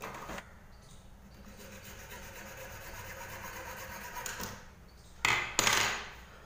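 Hacksaw blade sawing through a plastic toothbrush handle, a steady rasp of fast short strokes. About five seconds in come two short, louder scraping noises.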